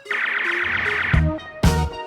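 Background music with a beat: a bright, high flourish for about the first second, then drums and bass come back in.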